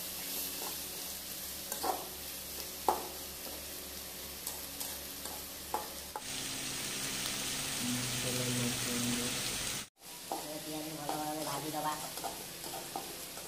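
Sliced onions frying in hot oil in a metal kadai, sizzling steadily while a metal spatula stirs them, with sharp scrapes and clicks against the pan. The frying sound cuts out briefly about ten seconds in.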